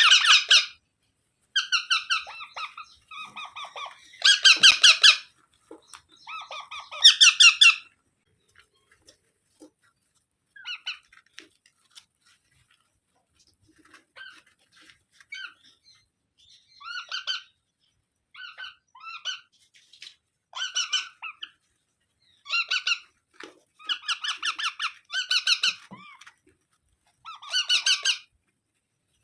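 Parrots calling in repeated short bursts of high, harsh squawking chatter, loudest in the first eight seconds, then in scattered clusters.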